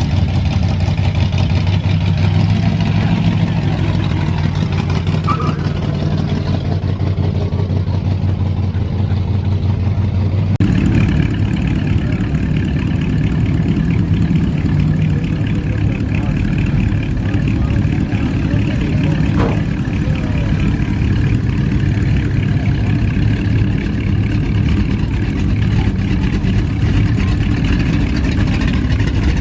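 A car engine running steadily at idle; about ten seconds in it cuts to a different engine, also running steadily.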